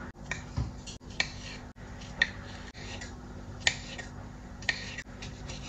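Kitchen knife slicing a sausage into rounds on a wooden cutting board: sharp taps of the blade striking the board, irregular, about one a second.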